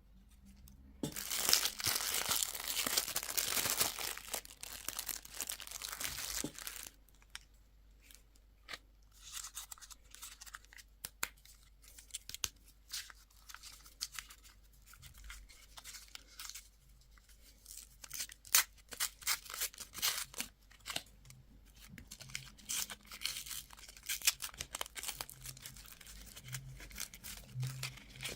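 Candy wrappers being torn open and crinkled: a dense stretch of tearing and crackling for about five seconds near the start, then scattered crinkles and small clicks.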